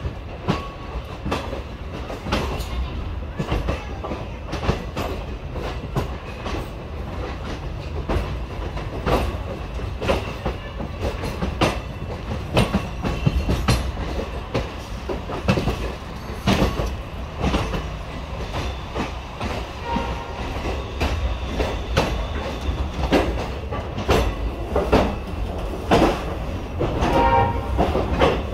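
Indian Railways passenger coach running along the track, heard from its open doorway: a steady low rumble with the wheels clacking irregularly over rail joints and points.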